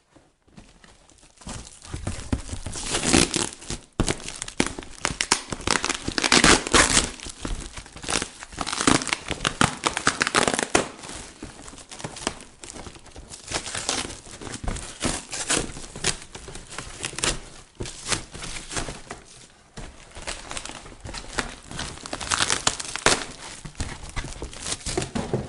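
A cardboard parcel being opened by hand: plastic wrapping crinkling, and packing tape and cardboard tearing, in irregular rustles and rips with a few short pauses.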